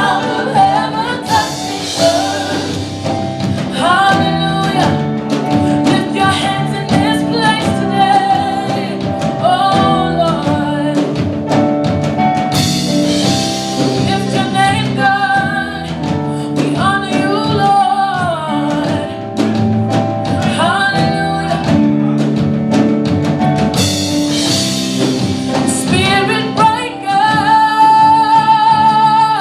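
A gospel song: a singer's voice carrying the melody over a full band accompaniment, with the singing held on a long, loud note near the end.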